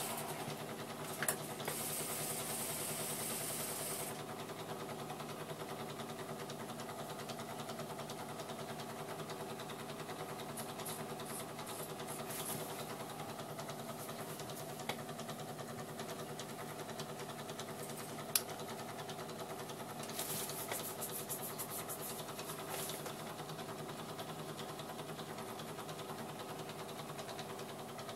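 Wiatka 14 automatic washing machine running a cleaning cycle: its motor hums steadily as the drum turns through sudsy water, with stretches of splashing and hiss and a couple of sharp clicks.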